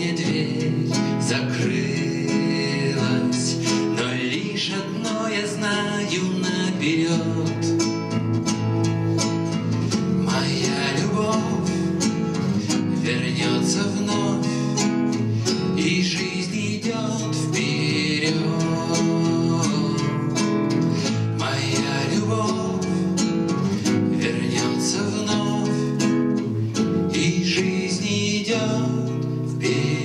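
A man singing, accompanying himself on a nylon-string classical guitar.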